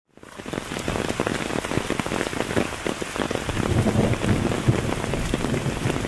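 Rain falling, a dense steady patter of drops that fades in over the first moment.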